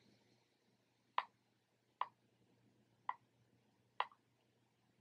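Four soft, sharp clicks at uneven intervals of about a second, from stepping through a smart TV's menu with the remote.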